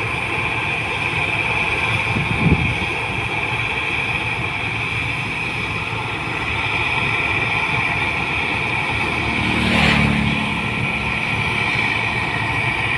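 New Holland 1545 combine harvester running while harvesting rice: a steady engine and threshing sound with a high whine over it. A single short knock about two and a half seconds in, and a brief surge of noise near the end.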